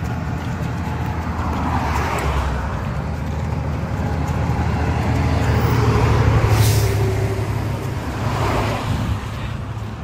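Highway traffic passing close by: car and truck engines give a steady low rumble that swells as vehicles go past, loudest about two-thirds of the way through, where a passing vehicle adds a brief hiss of tyres and wind.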